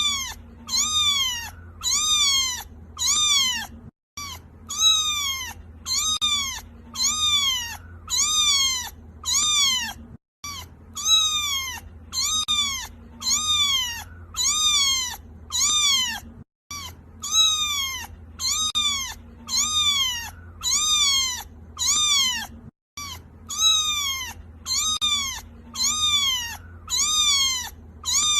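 Kitten crying: a quick run of high-pitched meows, about one and a half a second, each rising and then falling in pitch. The calls come in runs of about six seconds with a brief gap between runs, like a repeated recording.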